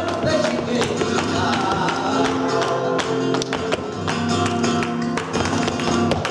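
Live flamenco music: a flamenco guitar playing, cut through by frequent sharp percussive strikes from the performers.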